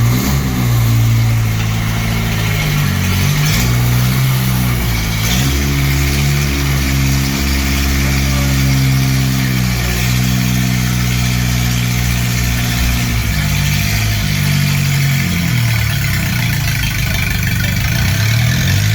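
A vehicle engine running and being revved. Its pitch dips and climbs back several times and holds higher for a few seconds partway through.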